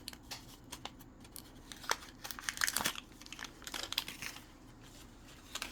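Small plastic wrapper crinkling and tearing as a miniature toy item is unwrapped by hand, irregular crackles with a few sharper clicks about two to three seconds in.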